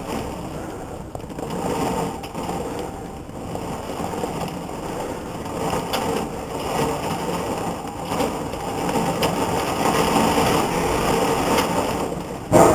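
Steady hiss of heavy thunderstorm rain, slowly growing louder. Near the end a close lightning strike sets off a sudden, much louder thunderclap.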